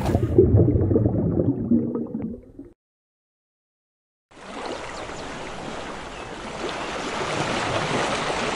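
A muffled low rumble fades out about two and a half seconds in. After a second and a half of silence comes a steady rushing of ocean surf that slowly swells.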